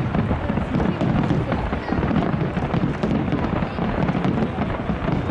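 Fireworks going off in a dense, continuous barrage of crackles and bangs with no break.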